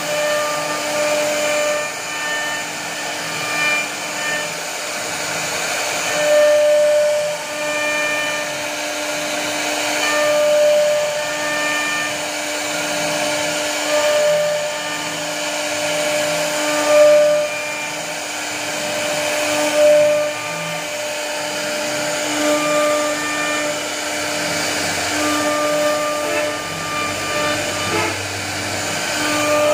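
CNC router spindle carving a floral relief into a wooden door-frame panel: a steady machine whine with the rasp of the bit cutting wood. A pitched hum breaks off and comes back every couple of seconds as the cut moves along.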